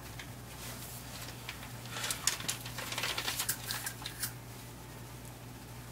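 A folded sheet of paper rustling and crinkling as it is opened and handled, a run of short crackles from about two to four seconds in, over a steady low hum.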